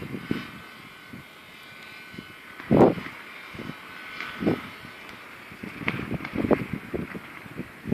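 Storm wind gusting against the microphone in irregular low rumbles, over a faint steady hum.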